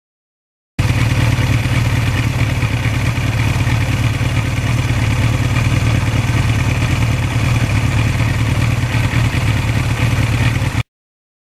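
1982 Suzuki GS1100E's air-cooled inline-four engine running steadily under way on a ride. The sound cuts in suddenly about a second in and stops just as suddenly near the end.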